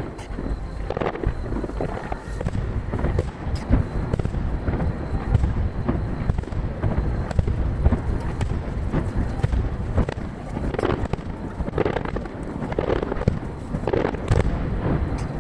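Aerial firework shells bursting one after another in a dense run of booms and crackles, with echoes trailing each burst, played back at three times normal speed.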